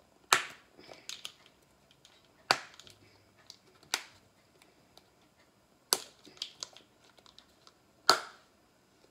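Plastic zip-top bag crinkling in sharp crackles as it is handled while seasoning is spooned in. There are five loud crackles spread about two seconds apart, with smaller clicks and rustles between them.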